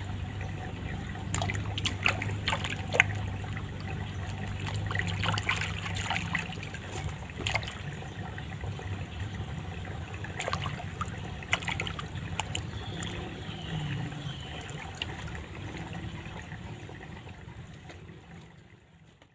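Water trickling in a shallow stream, with scattered small splashes and drips. It fades out near the end.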